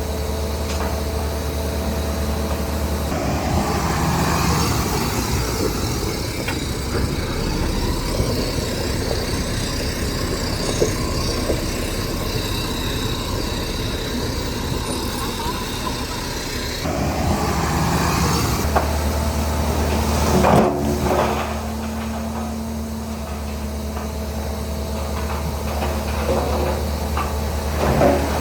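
Heavy diesel earthmoving machinery running steadily with a low drone, with metallic knocks and scraping as it works the soil; a sharp clank about 20 seconds in and another near the end.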